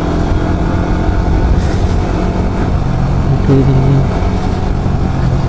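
Motorcycle engine running at a steady cruise, with wind and road rush on the rider's camera microphone.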